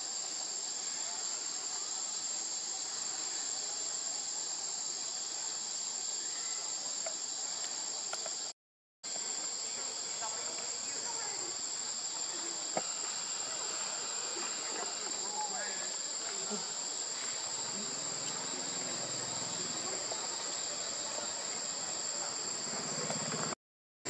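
Steady high-pitched drone of a forest insect chorus, cicadas or crickets, with no break in its pitch. The sound drops out to dead silence briefly twice, about a third of the way in and just before the end.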